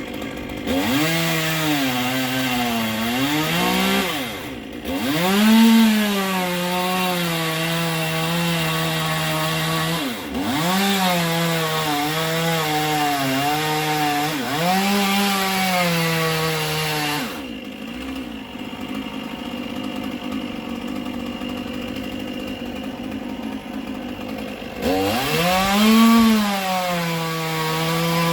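Two-stroke chainsaw cutting wood, its engine note dropping under load in the cut and climbing back as it revs between cuts. Past the middle it falls back to a quieter idle for several seconds, then revs up again near the end.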